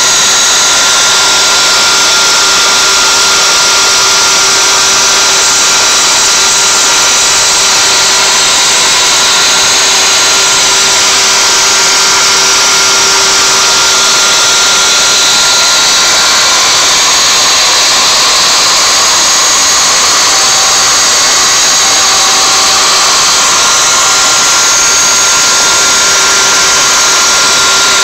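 CNC router spindle running at 24,000 rpm with a 1/8-inch up-shear solid carbide spiral bit cutting knotty alder: a loud, steady high whine mixed with cutting noise. Its tone shifts about halfway through.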